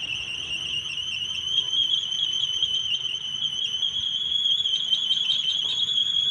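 Wooden kolecer propeller spinning in strong wind, giving a steady, high, slightly wavering whine.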